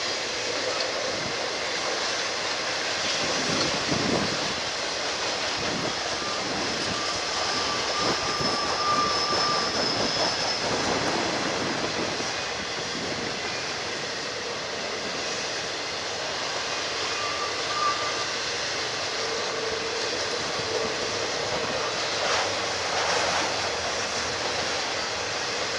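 Cars of a BNSF intermodal freight train rolling past: a steady rush of steel wheels on rail, with a few brief high-pitched wheel squeals.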